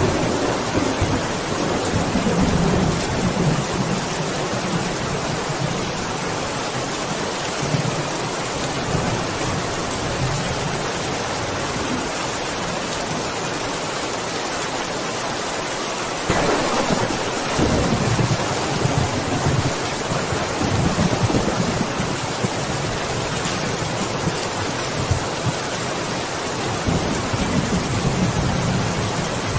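Steady heavy rain with thunder rumbling low beneath it. About halfway through a louder peal of thunder breaks in suddenly and rolls on for several seconds, and another rumble comes near the end.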